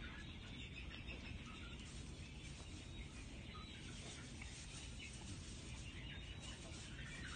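Quiet, steady background noise with a few faint, short high chirps scattered through it.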